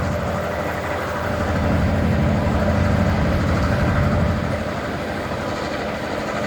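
Diesel freight locomotive running, a heavy low engine drone over the steady noise of the train, the drone easing off about four seconds in.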